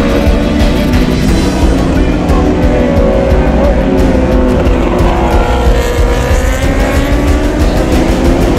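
A pack of 1000 cc superbikes at race pace, their engine notes falling and then rising again as they brake for and accelerate out of corners, under background music.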